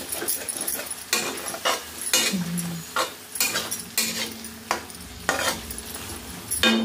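Flat metal spatula scraping and knocking against a metal kadhai in repeated, uneven stirring strokes, over the steady sizzle of the curry cooking in the pan.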